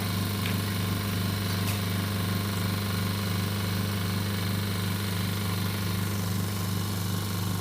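Vacuum pump running with a steady low hum and a fast, even pulse, drawing vacuum on an OCA vacuum laminator during its vacuum extraction stage before lamination.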